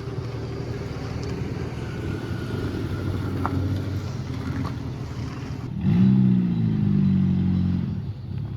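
Nissan Serena C24 minivan driving on a rough dirt road, heard from inside the cabin: a steady low rumble with a few clicks and knocks. About six seconds in, the engine note rises and holds higher for about two seconds, then drops away.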